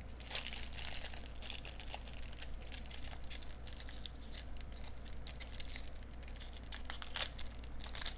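Foil wrapper of a trading-card pack being torn open and crinkled between the fingers: a steady run of small crackles and rips.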